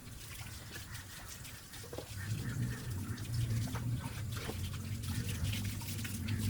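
Water running and dripping, with many small splashes, over a steady low hum that grows louder about two seconds in.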